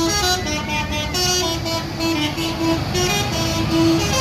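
A bus's 'basuri' telolet horn, a multi-note musical horn, playing a quick tune of short stepped notes over the low rumble of the bus's engine.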